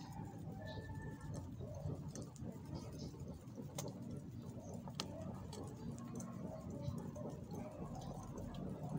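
Woven hand fan waved back and forth over a charcoal fire, a steady rhythmic whooshing, with scattered small clicks from the coals and grill.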